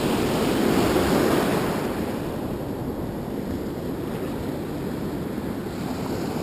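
Ocean surf washing up the beach, with wind buffeting the microphone. The wash is louder for the first couple of seconds, then eases to a steady background rush.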